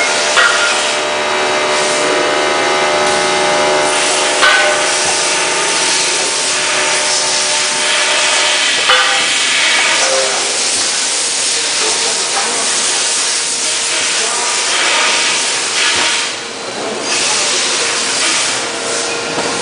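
Riveting machine running: a steady hiss and machine hum, with three sharp clacks about four seconds apart in the first half.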